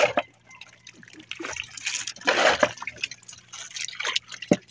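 Water splashing and dripping as a multi-hook handline is hauled up with hooked fish thrashing at the surface beside the boat, in irregular bursts, the biggest about two and a half seconds in.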